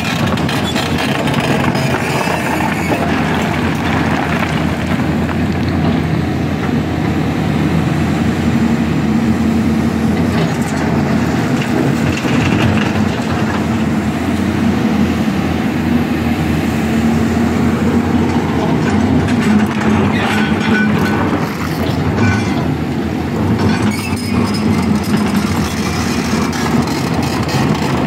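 Loud, steady din of heavy machinery working rock: a Hyundai crawler excavator's diesel engine running under load, with continual rattling clatter of rock.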